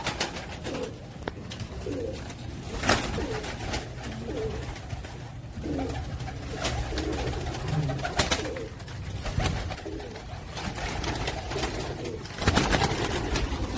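Domestic pigeons cooing over and over, with a few sharp clatters, the loudest near the end.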